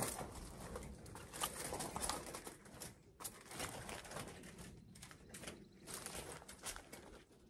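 A roll of heavy-duty woven wire field fencing being unrolled along the ground, making an uneven rustling noise.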